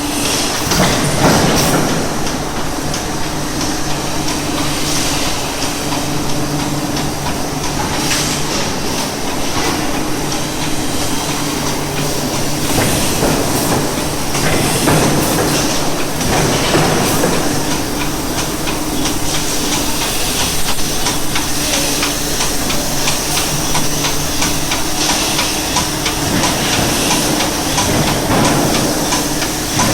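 A 1000-ton forging press running: a steady machine hum with a hiss of air over it, swelling louder several times.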